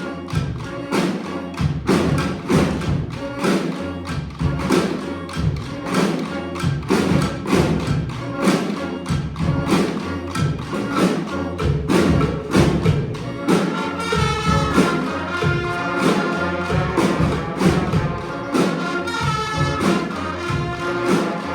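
Street band with brass and percussion playing a tune live, drums keeping a steady beat under a bass line. About two-thirds of the way in, held melody notes from the horns come in over the beat.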